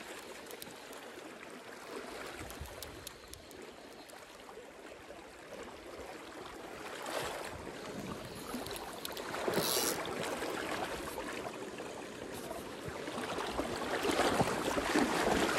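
Steady rush of river water, with a brief louder burst of noise about ten seconds in and the water sound swelling near the end.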